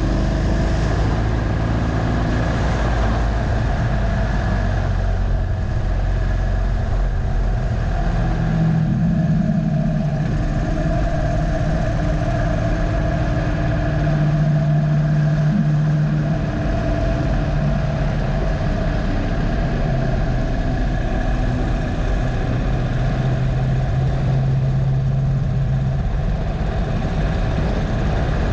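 Harley-Davidson Dyna Low Rider's air-cooled V-twin running under way on a track, heard from on board the motorcycle. The engine note shifts up and down in steps as the throttle and speed change.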